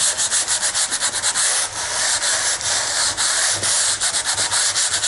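Sanding block with sandpaper rubbed by hand in quick back-and-forth strokes over a mound of cured Bondo body filler on wood, cutting the filler down flush with the surface. The strokes make a steady rasping, several a second, with a brief lull about two seconds in.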